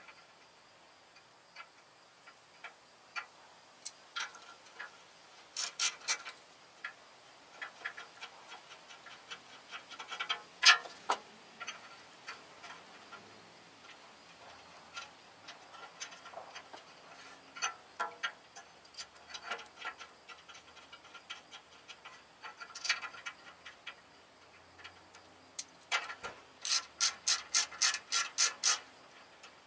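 Hand ratchet wrench clicking in short runs, mixed with scattered clinks and knocks of a tool on metal parts, and one louder clack about ten seconds in. Near the end comes a steady run of clicks, about four a second.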